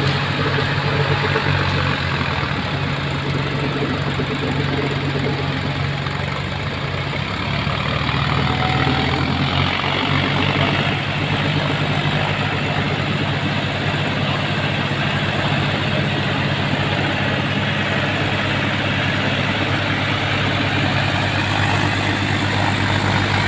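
Diesel tractor engines running steadily while rotavating a flooded paddy field, a continuous engine drone whose note shifts a little about eight seconds in.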